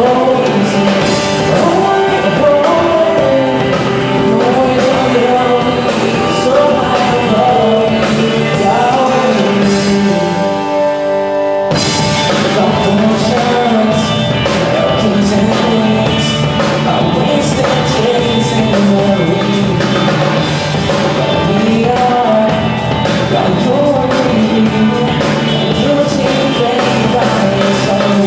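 Live rock band playing a worship song: a male lead singer with electric guitars, bass and drum kit. The band thins out about ten seconds in and comes back in full near twelve seconds.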